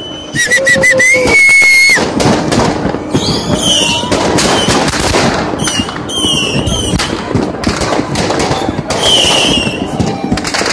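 Street fireworks and firecrackers going off all around: a dense run of sharp bangs and crackling that hardly lets up. High tones sound over it, several of them falling in pitch.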